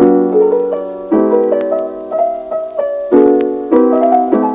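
Piano music: chords struck about once a second with a melody above them, each chord ringing and fading before the next.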